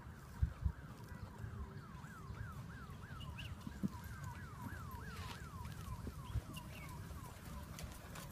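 Faint emergency-vehicle siren wailing in a fast yelp, its tone sweeping up and down a few times a second, over low wind rumble.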